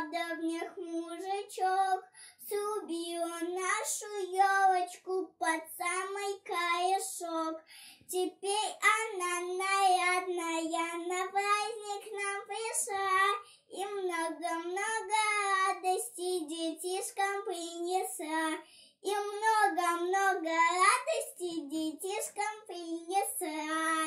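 A young girl singing a Russian children's New Year song solo, with no accompaniment, phrase by phrase with short breaths between lines.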